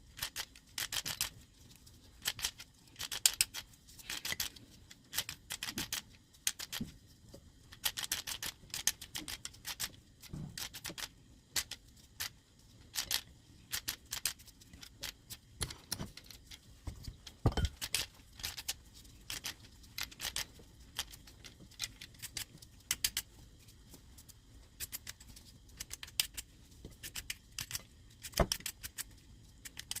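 Potatoes being peeled by hand: a blade scraping off the skin in quick, irregular short strokes, with a dull thump about seventeen seconds in.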